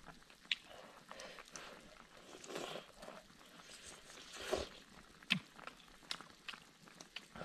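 Faint eating sounds: a person chewing food, with a few sharp clicks scattered through.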